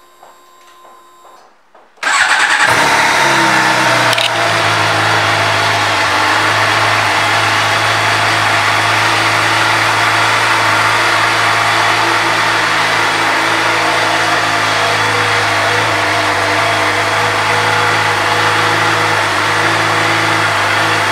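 2011 Suzuki GSX-R750's inline-four engine starting about two seconds in, its revs falling over the next couple of seconds, then idling steadily.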